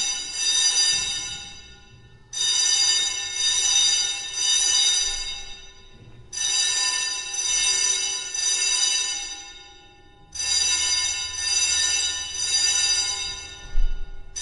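Fire alarm sounding in repeated blasts of a steady, many-toned ring, each starting sharply and fading away over two to three seconds, coming back about every four seconds.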